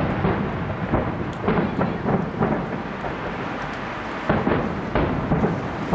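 Fireworks display: aerial shells bursting in a rapid, irregular string of bangs, about a dozen in a few seconds, over a continuous rumble.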